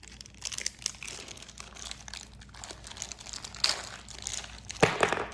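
Plastic packaging crinkling and crackling in irregular bursts as toy surprise packages are handled and opened, with a couple of louder crackles near the end.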